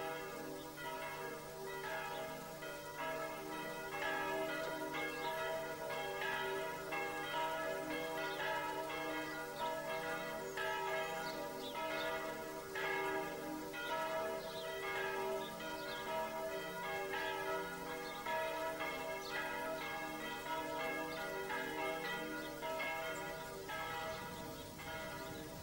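Bells pealing, struck over and over in quick succession so that their tones ring on and overlap.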